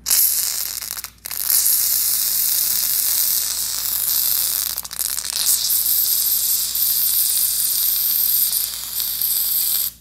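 Aerosol can of silicone lubricant spraying through its thin extension straw: a steady hiss that stops for a moment about a second in, then runs on and cuts off just before the end.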